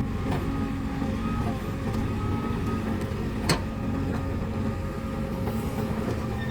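Diesel engines of a backhoe loader and tractor running steadily at work, with a single sharp knock about three and a half seconds in.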